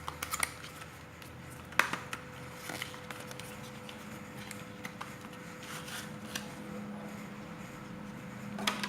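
Handling noise from a speaker's box and its accessories being taken out: a few quick clicks and taps at the start, one louder sharp click just under two seconds in, scattered light ticks and a short rustle near the end, over a faint steady hum.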